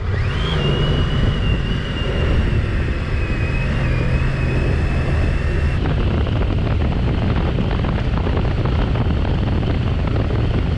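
Honda ST sport-touring motorcycle's V4 engine running under way, with wind and road noise on a handlebar-mounted camera's microphone. A steady high whine sits over it through the first half.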